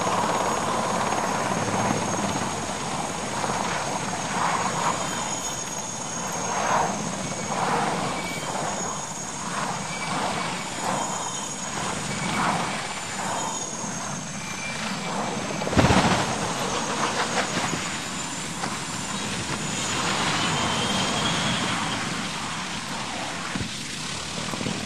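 Military transport helicopter's turbines and rotor running, a thin high whine over the rotor noise with a pulsing beat in the middle. About two-thirds of the way through, one loud crash as the tipping helicopter hits the ground, and the rotor and engine noise goes on after it.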